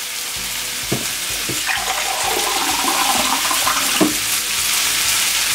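Half a glass of water poured into a hot pan of partly cooked yam and raw banana, with a steady hiss that grows louder after the first second or so and a couple of light knocks. The water is added because the cooking liquid has boiled off before the yam is soft.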